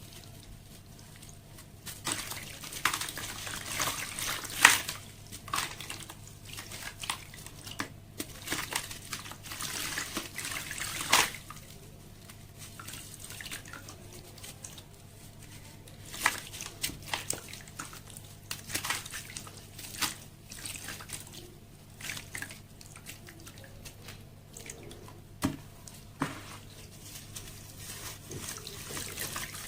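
Sand-cement slabs crumbling in water: wet crackling and dripping in irregular bursts, starting about two seconds in, with a few louder cracks among them.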